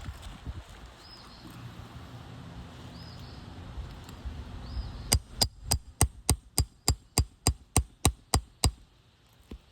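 Roofing hammer striking a steel nail puller about thirteen times in quick, even succession from about halfway in, working the puller under a shingle nail to draw it out.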